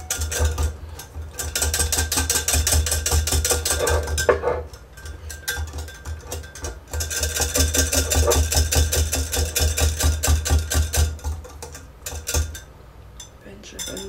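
Metal wire whisk beating fast against the inside of a glass measuring jug, dissolving potassium hydroxide into glycerin. It comes in two long bouts with a pause of about two seconds between them, and gets quieter near the end.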